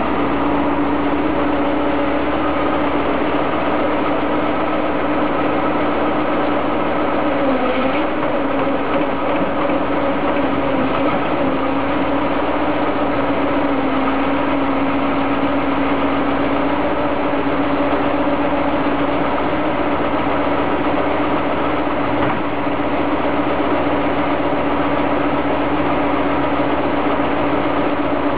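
Old Soviet EO-5123 crawler excavator's engine idling steadily, a constant hum with one strong held tone that wavers briefly about eight seconds in.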